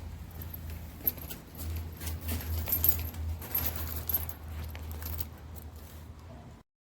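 Light clicks and rattles of small hard parts being handled, over a steady low hum, cutting off abruptly near the end.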